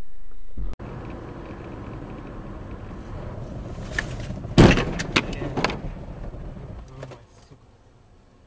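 Steady vehicle road noise, then a loud sudden crash impact a little past halfway, followed by several sharp clatters, most likely a car collision caught on a dashcam.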